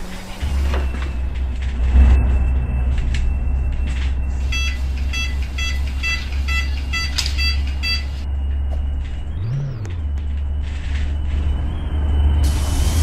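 Citybus bus engine idling with a steady low hum, with a knock about two seconds in. Between about four and a half and eight seconds in comes a run of evenly spaced electronic beeps, about two a second, like a door or warning buzzer. About nine and a half seconds in the engine briefly revs up and back down.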